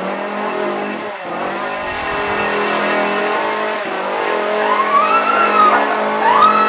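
Chainsaw engine running steadily, with two separate rising-and-falling wails over it near the end.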